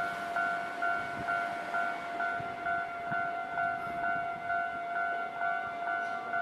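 Japanese railway level-crossing warning bell ringing: an electronic clang that repeats evenly about twice a second, each strike at the same steady pitch.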